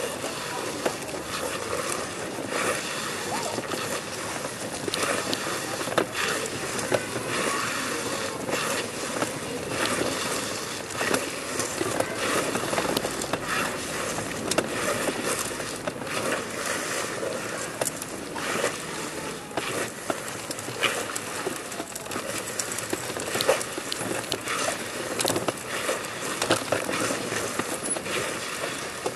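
A person army-crawling over stone paving: clothing and body dragging and scraping across the stones, with irregular scuffs and taps as the rubber-soled shoes push off.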